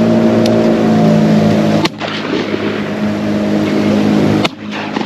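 A boat's outboard motor running at a steady pitch, with two sharp breaks, about two seconds and four and a half seconds in.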